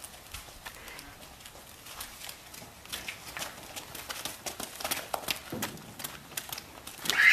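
Hoofbeats of a young Oldenburg horse trotting in hand on a dirt lane: an uneven run of light clops, busier in the middle stretch.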